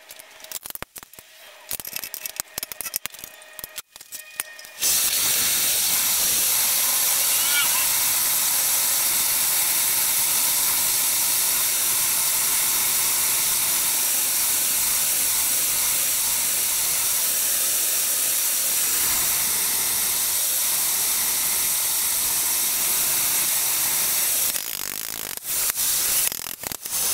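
MAP gas hand torch burning with a steady hiss as it heats a clamped 1/8-inch steel strap for bending. The hiss starts suddenly about five seconds in, after a few clicks and knocks of handling, and breaks off into knocks and clatter near the end.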